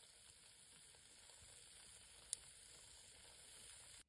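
Faint steady sizzling and crackling of hot baked Spam with melted cheese, with one sharp click a little over two seconds in; it stops abruptly near the end.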